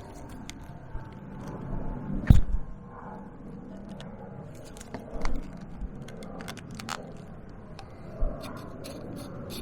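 Hand rivet nut tool being worked to set a rivet nut: scattered metal clicks and light knocks, with one loud knock about two seconds in.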